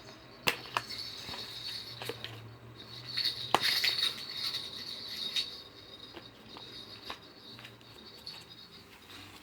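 A cat batting at a stacking-ring pyramid toy: scattered sharp clicks and knocks, the loudest about three and a half seconds in, with a high rattling rustle in between.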